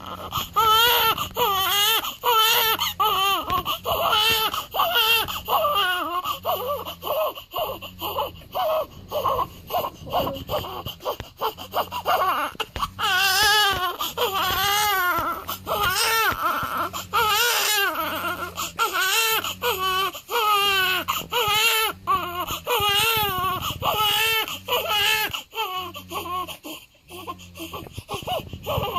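Week-old newborn baby crying: repeated cries with a wavering pitch, broken by short pauses for breath.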